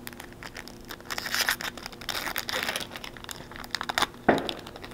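Foil trading-card pack wrappers crinkling and tearing as they are opened and handled by hand, a run of quick crackles with denser rustling in two stretches, and one louder burst of noise about four seconds in.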